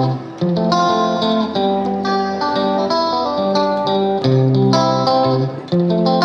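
Background music led by a plucked guitar playing a melody of distinct notes.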